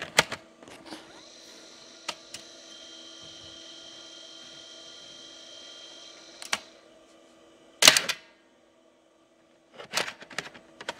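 Iomega Zip Plus 100 drive taking a Zip disk: the disk is pushed in with a few clicks, then the drive spins it up with a steady whir and a high whine. About six and a half seconds in the eject button clicks, the whir stops with a sharp clack about eight seconds in, and more clicks come near the end as the disk is pushed out.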